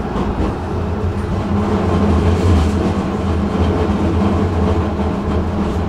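Tram running, heard from on board: a steady rumble of wheels on the rails with a constant low hum.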